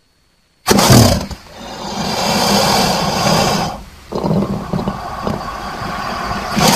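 Crocodile vocalizing: two long calls with a short break between them, the first starting abruptly about a second in and loudest at its onset.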